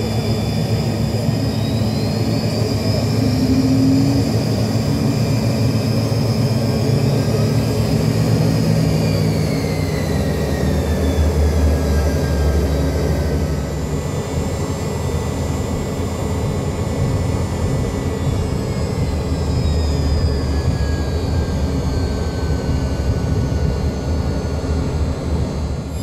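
Yak-40's three rear-mounted Ivchenko AI-25 turbofans heard from inside the cabin as the airliner taxis: a steady heavy rumble with high whining tones that rise early on and fall away later as engine thrust changes.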